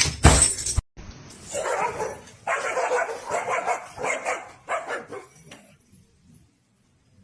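A dog barking repeatedly in short bursts for a few seconds, then falling quiet. It follows a loud noisy sound that cuts off abruptly just under a second in.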